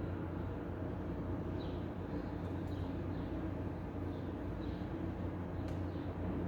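City street ambience: a steady low rumble of traffic, with faint short high chirps falling in pitch about once a second and a couple of light clicks.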